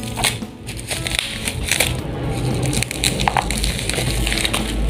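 Scissors cutting open a plastic parcel mailer lined with bubble wrap, the plastic crinkling and crackling irregularly as it is cut and handled.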